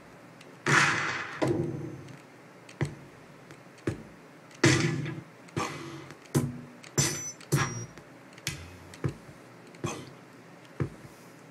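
Kick drum one-shot samples auditioned one after another from a sample library: about a dozen single hits at uneven spacing, each a sharp attack that dies away within about half a second.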